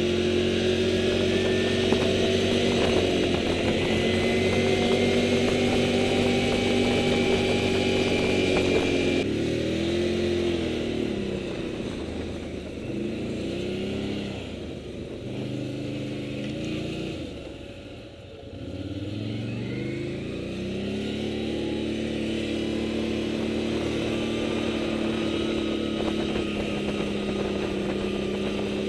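Motorcycle engine running while the bike is ridden. The engine note is steady at first and changes abruptly about a third of the way in. It then rises and falls repeatedly with throttle and gear changes, eases almost to idle about two-thirds in, and picks up again to a steady run.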